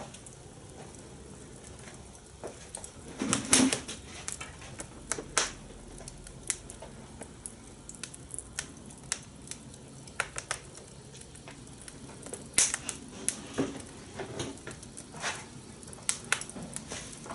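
Fire crackling, with irregular sharp pops and snaps and a cluster of louder ones about three to four seconds in.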